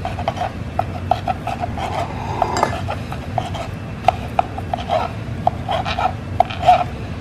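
Chef's knife chopping salami on a plastic cutting board: a run of quick, uneven taps of the blade against the board, several a second.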